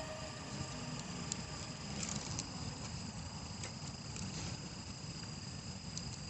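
Campfire crackling softly with scattered small pops, over a steady high insect trill, likely crickets.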